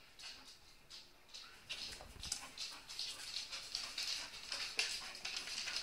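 Dogs scuffling about on a wooden floor: a scatter of quick, light clicks and scrapes, with a soft thump about two seconds in.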